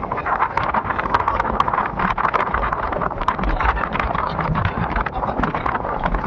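Strong wind buffeting the microphone, a steady rushing with crackling and low rumble throughout.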